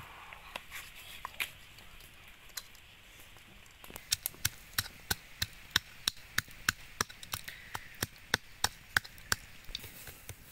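Stone pestle pounding fresh chillies in a coconut-shell bowl. After a few scattered knocks, steady sharp strikes start about four seconds in, roughly three a second.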